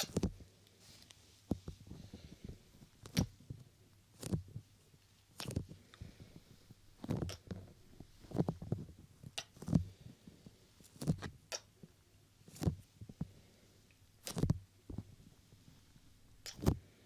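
Close-up hand touching and brushing on the camera and microphone: short, soft bumps and rubs at an irregular pace, roughly one a second, some in quick clusters.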